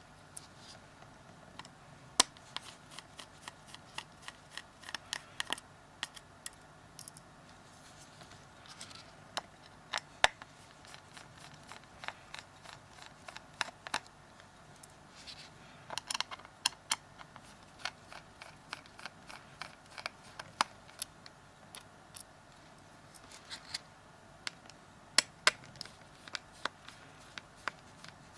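Small Phillips screwdriver and fingers working the screws around the edge of a Samsung Galaxy S3's plastic midframe: scattered irregular light clicks and ticks, a few sharper ones, as the screws are undone and handled.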